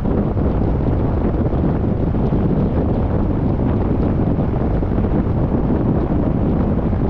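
Wind buffeting the microphone: a steady, loud, low rumble with no breaks.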